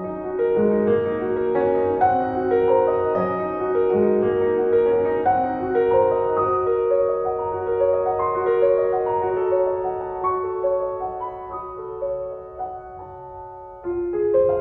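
Background piano music: a slow melody of single notes over held chords, with a fresh chord struck near the end.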